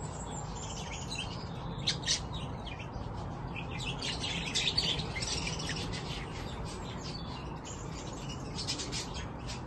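Budgerigars chirping and chattering, with thicker runs of quick high chirps about two seconds in, around five seconds and again near the end.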